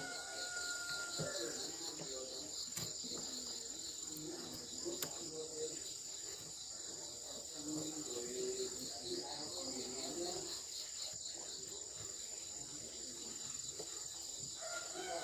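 Insects chirring continuously, a high-pitched steady buzz with a fast pulsing trill beneath it, over faint background activity.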